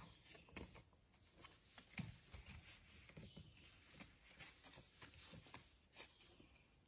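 Faint rustling and crinkling of a sheet of paper handled and creased by hand while folding a paper airplane, with scattered soft clicks.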